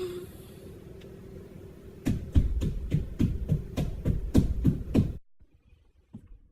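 A quick series of about ten knocks, roughly three a second, after a faint hiss; it cuts off suddenly about five seconds in.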